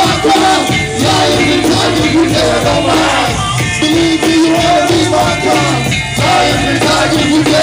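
Loud live hip-hop music over a PA: a DJ-played beat with the rapper's voice over it through a handheld microphone.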